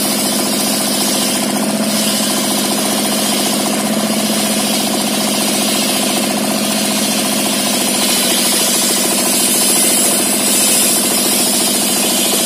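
Dompeng single-cylinder diesel engine running steadily with a fast, even chugging, driving a belt-driven circular saw table. A wooden plank is being ripped through the disc blade, adding a hissing cutting noise that swells slightly near the end.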